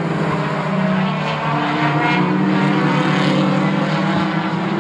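Several four-cylinder short-track race cars running at speed together around the oval, their engine notes overlapping at different pitches that rise and fall slightly.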